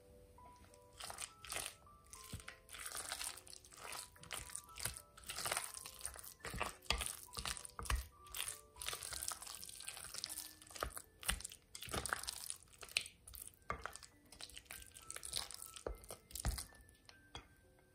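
Wooden spoon mixing mashed kabocha squash, diced red bell pepper and mayonnaise in a glass bowl: irregular wet stirring and scraping strokes that start about a second in and stop near the end. Soft background music plays underneath.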